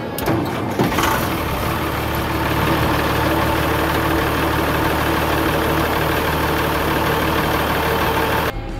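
Cummins 6BT 12-valve inline-six diesel in a Dresser 515 wheel loader starting up and settling into a steady idle, its starter now working on freshly replaced starter solenoids. The idle cuts off suddenly near the end.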